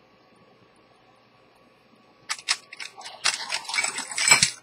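A few sharp clicks, then about a second and a half of dense scratchy clicking and rattling that stops abruptly: hand-handling noise from a small glass bottle being picked up and worked over a watch dial close to the microphone.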